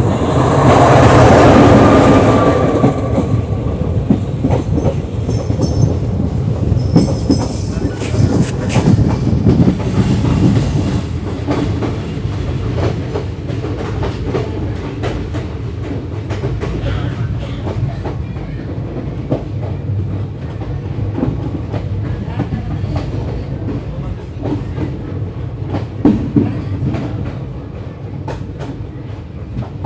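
Bikaner–Haridwar Express passenger train running, its wheels clattering over rail joints above a steady rumble. A loud rush of noise fills the first three seconds, and a few thin high squeals come between about five and ten seconds in.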